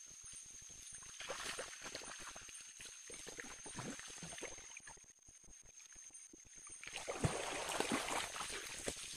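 Water sloshing and splashing around a person's legs as he wades through thigh-deep floodwater, in two spells, the louder one near the end.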